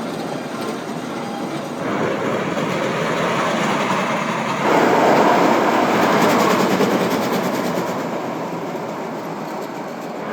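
Zierer family roller coaster train rolling along its track, a steady rumble and clatter of the wheels that grows louder about five seconds in and eases off near the end.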